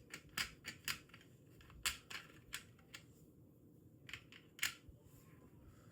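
Irregular small clicks and taps, about seven in all, from small model-kit parts being handled and fitted by hand.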